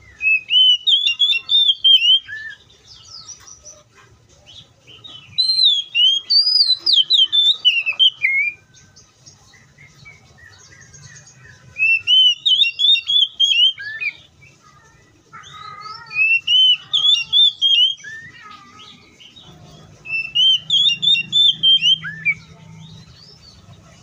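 Oriental magpie-robin singing: five bursts of rapid, whistled song phrases, each two to three seconds long, separated by short pauses.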